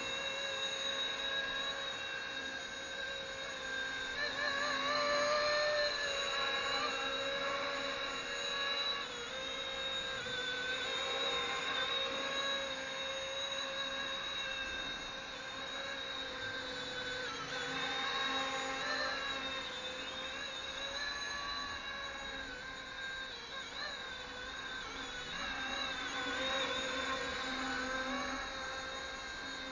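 RC ERA C190 electric model helicopter in flight: a steady high motor and rotor whine that wavers slightly in pitch as the throttle changes.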